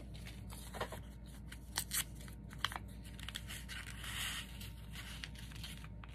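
Paper being handled: light rustling and crinkling with a few soft ticks, and a brief scratchy rasp of paper about four seconds in.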